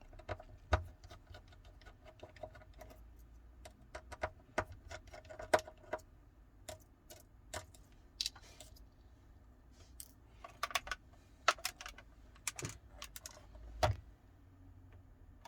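Irregular light clicks and metallic taps of small repair tools and tiny screws handled on a smartphone's frame during disassembly, a few with a short ring.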